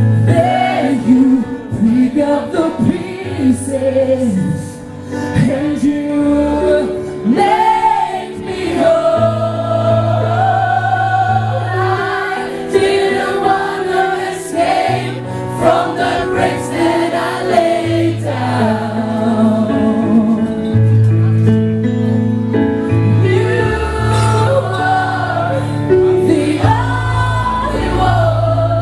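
Female lead vocalist singing a slow ballad live while playing held chords on a stage keyboard, the low notes changing every few seconds under the voice.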